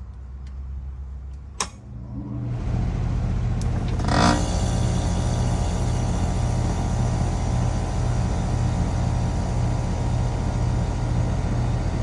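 A motor-driven machine starts up about two and a half seconds in and runs on with a steady hum. A sharp click comes just before it, and a brief clatter about four seconds in.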